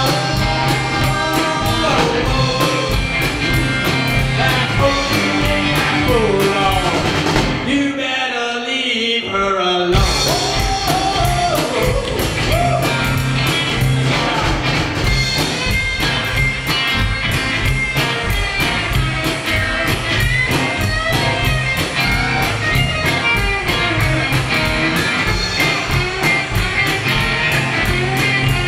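Live rockabilly band playing: electric guitars, upright double bass and drum kit under singing. About eight seconds in, the drums and bass drop out for about two seconds, then the full band comes back in.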